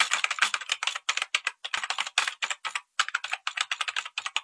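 Computer keyboard typing sound effect: rapid, uneven key clicks with a few brief pauses.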